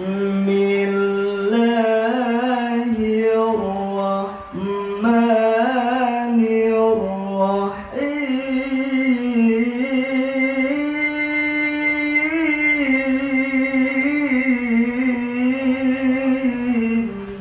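A man's melodic Quran recitation (qiroah), with long held notes and ornamented turns. It comes in three phrases, breaking about four and a half and eight seconds in; the last phrase is pitched higher and held almost to the end.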